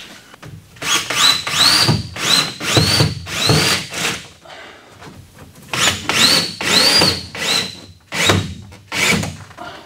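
Power drill driving 1¼-inch low-profile flat-head lath screws through the fiberglass tub-shower flange into wooden studs. It runs in a string of short trigger pulls, each a whine that rises quickly in pitch and then holds, in two groups with a pause around the middle.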